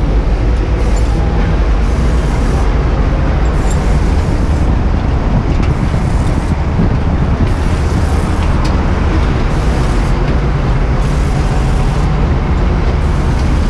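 Fire truck engine running loudly and steadily while the aerial ladder is in use, with a few light clicks of metal on the ladder.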